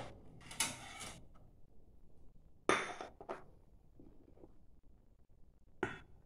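A metal spoon clinking and scraping against a glass bowl while eating, a few separate knocks and scrapes, the loudest about three seconds in.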